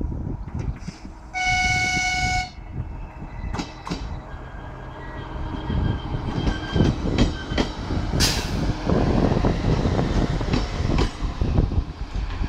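Belarusian DP1 diesel multiple unit sounding one horn blast of about a second, then running past close by: the noise of the train grows louder, with wheels knocking over rail joints.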